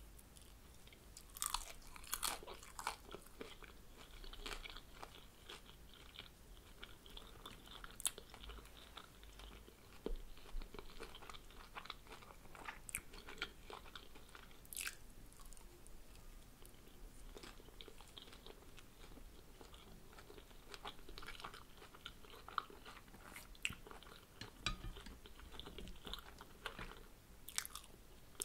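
Close-miked chewing and biting of fried spring roll, with irregular crisp crunches and clicks.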